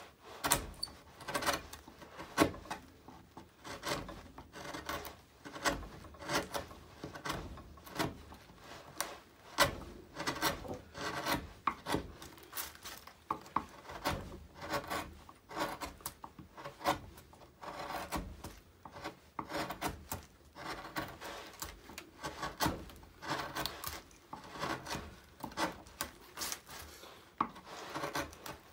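Hand carving tool pushed through alder wood, a long series of short scraping cuts, about one a second, as the wood is pared away behind stop cuts.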